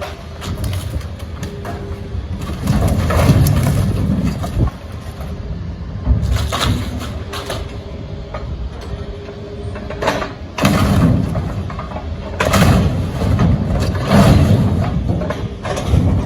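Building demolition: heavy machinery running, with repeated loud spells of crashing and scraping debris as the structure is torn down.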